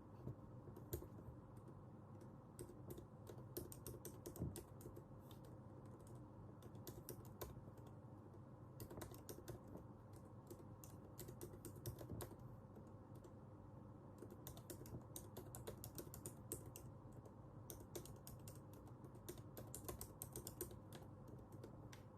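Typing on a computer keyboard: quick runs of keystrokes broken by short pauses, quiet, over a faint steady hum.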